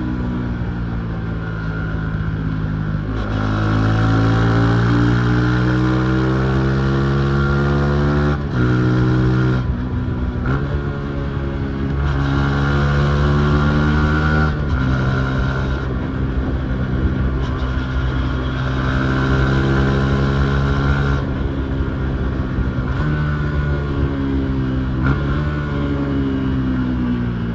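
Yamaha MT-15's single-cylinder motorcycle engine running under way. Its pitch rises and falls with the throttle and jumps sharply several times as the gears are shifted.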